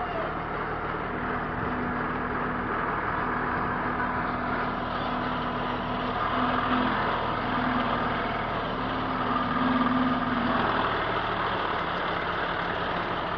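A motor vehicle engine running steadily, with a low hum that comes and goes over a constant rushing hiss.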